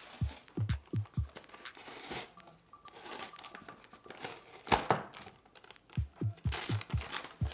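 Cardboard packaging being torn open by hand in several rips, the loudest and sharpest about two-thirds of the way through. Background music with a deep kick-drum beat plays at the start and again near the end.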